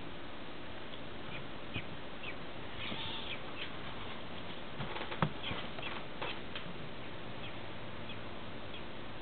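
Nestling American robin giving short, high begging squeaks while it is fed from tweezers, with one sharp knock about five seconds in. A steady hiss runs underneath.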